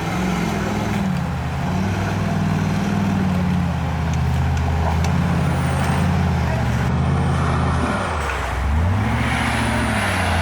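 Off-road 4x4's engine working under load, its speed rising and falling, dipping about eight seconds in and then picking up again.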